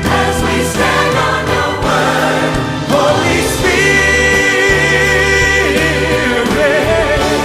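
Choir singing with instrumental accompaniment in a gospel-style choral arrangement; a high note is held for about two seconds in the middle.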